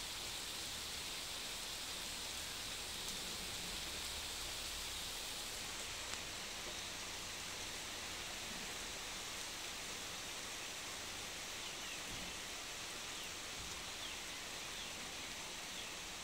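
Steady rain falling on grass and open ground, an even hiss.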